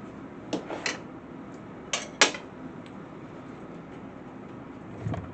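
A few light clinks of cutlery on a plate, two close together early and two louder ones about two seconds in, then a soft low thump near the end.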